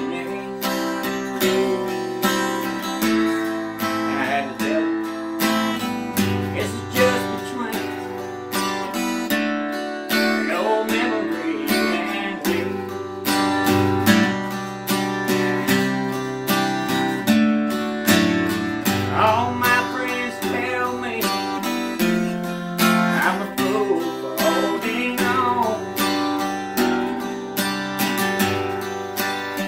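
Steel-string acoustic guitar strummed in a steady country rhythm, an instrumental stretch with no singing.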